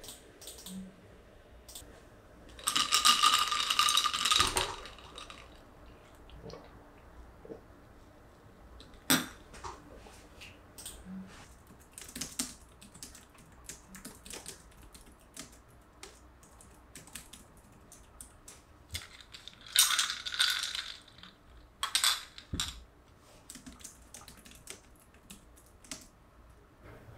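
Computer keyboard being typed on, single keystrokes clicking irregularly. Three short bursts of clinking rattle stand out: one about three seconds in and two near the end.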